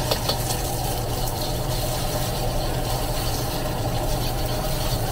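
Eggs sizzling in hot oil in a wok as a metal ladle stirs them, with a couple of sharp knocks of the ladle against the wok near the start, all over a steady low roar.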